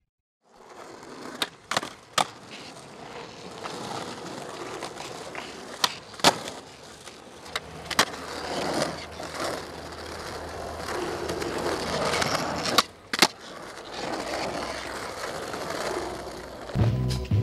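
Skateboard wheels rolling on pavement, with sharp board clacks, several in pairs about half a second apart, like the tail popping and the board landing. Music comes in near the end.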